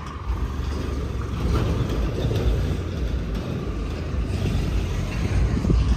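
Farm tractor's diesel engine running steadily as it tows a tall mesh-sided straw trolley away down a dirt road.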